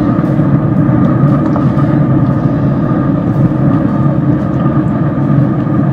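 Traeger pellet grill's fan running with a loud, steady hum, with a few faint scrapes of a wooden spoon stirring beans in a cast iron skillet.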